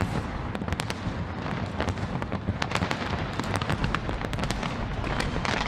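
Fireworks display going off: a dense run of sharp crackles and pops over a continuous low rumble of bursts.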